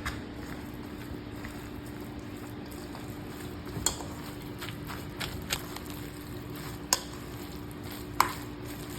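Spoon stirring and mashing rice, vegetables and gochujang together for bibimbap, a wet squishing with a few sharp clinks of the spoon against the dish, over a steady low hum.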